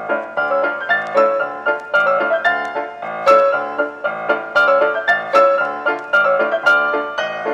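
Background instrumental music: a quick, even run of struck notes.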